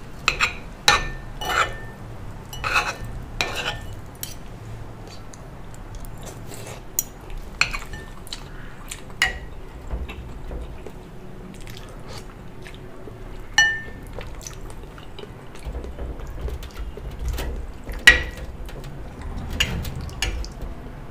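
Metal spoon and fork clinking and scraping against ceramic dishes while eating, in scattered sharp clinks, a few ringing briefly.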